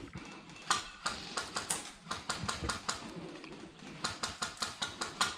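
Sharp clicking snaps of airsoft guns firing in quick runs of single shots, several a second, with irregular gaps between the runs.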